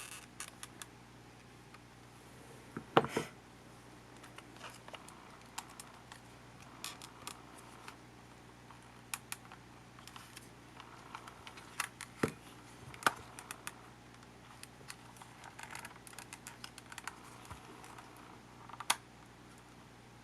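Small irregular clicks and taps of small parts and tools being handled while a camcorder is taken apart, with a sharper knock about three seconds in and a few more clicks later, over a low steady hum.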